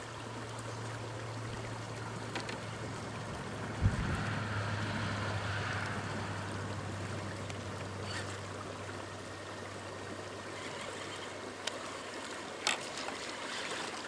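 Shallow creek water running over rocks as radio-control rock crawlers wade through it. A steady low hum fades out after a few seconds, with a knock about four seconds in and a couple of sharp clicks near the end.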